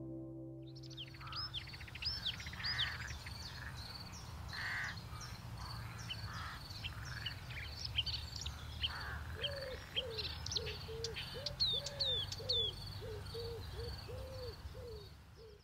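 Wild birds calling and singing: many small birds chirping with quick high whistles, and in the second half a run of low, evenly repeated arched calls from another bird, over a steady low rumble. The sound fades out just before the end.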